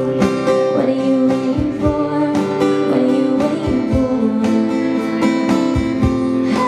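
Live acoustic folk-pop song: a steel-string acoustic guitar strummed, with a cajón giving low hand-struck thumps for the beat.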